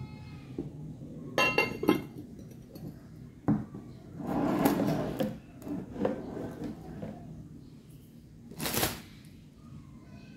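Glass casserole dish and its glass lid clinking together as they are handled, with two sharp ringing clinks about a second and a half in, followed by scraping and handling noises.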